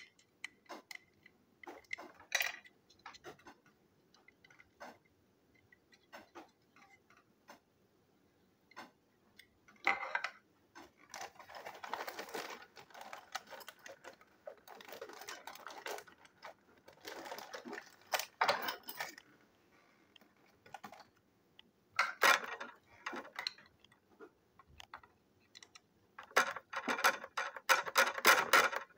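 Scattered clicks and bursts of plastic clattering as a battery-powered plastic toy locomotive is handled and picked up. The loudest burst of rattling comes near the end.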